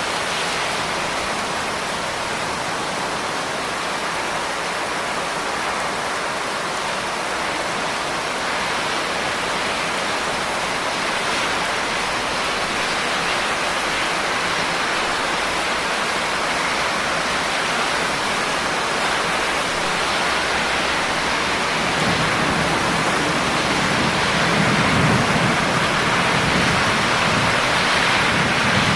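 Steady, even rain hiss. A low rumble comes in about three-quarters of the way through and swells briefly.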